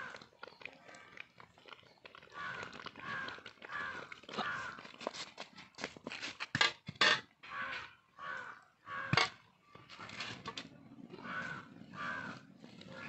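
Crows cawing repeatedly, with a few sharp metal clanks from a ladle and steel wok being handled, the loudest clanks around the middle and a little later.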